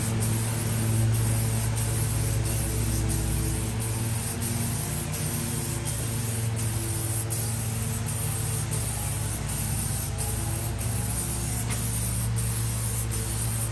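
Aerosol can of bright-metallic chrome-effect spray paint hissing steadily as it is sprayed onto a car grille bar. A steady low hum runs underneath.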